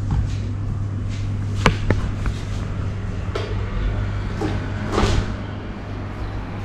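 Handling knocks over a steady low hum: two sharp clicks close together about two seconds in, and a duller thump about five seconds in.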